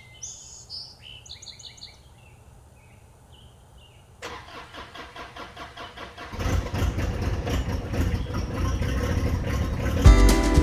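Birds chirping over a low hum. About four seconds in, a John Deere 1025R sub-compact tractor's three-cylinder diesel engine starts and runs, getting louder a couple of seconds later.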